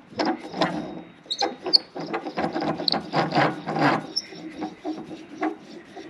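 Irregular metal clicks, scrapes and knocks as the front locking plate of an air conditioning compressor is worked loose by hand, busiest in the middle.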